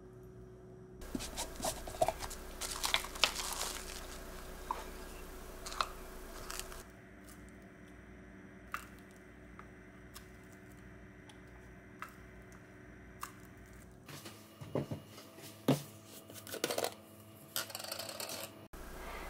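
Close-up kitchen handling sounds: crinkly plastic-wrap rustling, then scattered light clicks and knocks of a spoon against a glass jar and a drinking glass as cherry preserves are spooned out.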